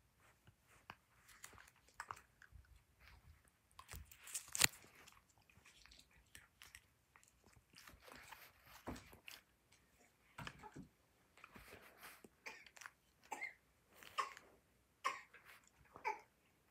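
Someone chewing and crunching candy in the mouth close to the microphone, with irregular crunches, the loudest about four and a half seconds in.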